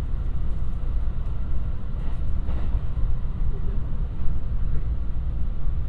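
Running noise of a JR West 223 series electric train heard from inside the passenger car: a steady low rumble with no distinct events.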